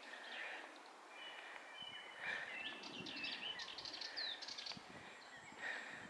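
Wild songbirds singing in woodland: a few thin, high, held whistles, then a quick, busy run of chirps and sweeping notes. Soft low thumps sound underneath midway.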